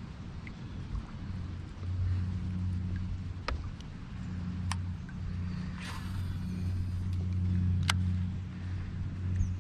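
A small motor's steady low hum, coming in about two seconds in and dipping now and then, with a few sharp clicks over it.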